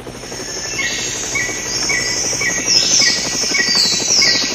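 Forest ambience of birds calling. A short chirp repeats about twice a second, and high whistles slide downward, fading in over the first second.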